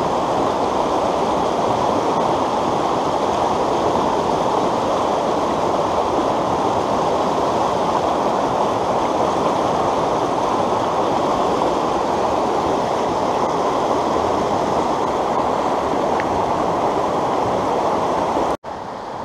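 Fast creek water rushing over a rocky whitewater riffle, a steady loud rush from a stream swollen by recent rain. It cuts off abruptly near the end, leaving a quieter rush.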